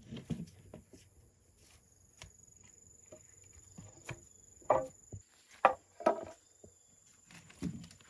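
Irregular knocks, thumps and scuffs, with a few louder knocks clustered a little past the middle.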